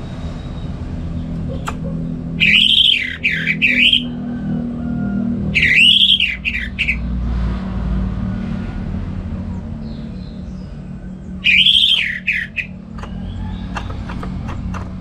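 Orange-headed thrush singing: three loud phrases of arching, looping notes with pauses between them. A steady low hum runs underneath.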